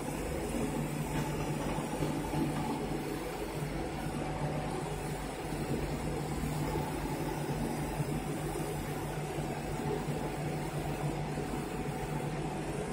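Laser cutting machine running while it cuts printed fabric: a steady mechanical hum with a few constant tones.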